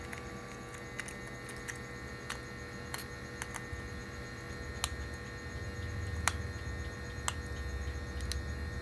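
Scattered light clicks and taps, about a dozen spread irregularly, over a steady electrical hum.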